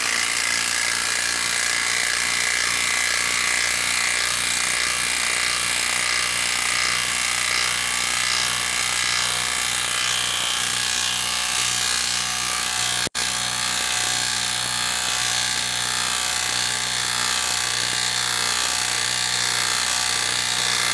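Hilti brushless 1/2-inch cordless impact wrench hammering steadily as it drives an 8-inch TimberLOK screw into a wooden log. The sound cuts out for an instant about two-thirds of the way through, then carries straight on.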